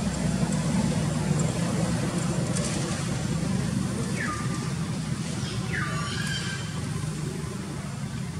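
A steady low rumble runs underneath, with two short animal calls about four and six seconds in, each dropping quickly in pitch and then holding briefly.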